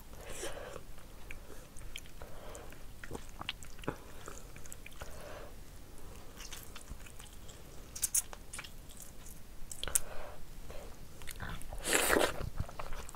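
Eating rice and curry by hand: fingers mixing rice on a plate and wet chewing and mouth sounds, with small clicks and smacks throughout. The loudest is a brief mouthful sound about twelve seconds in, as a handful of food goes into the mouth.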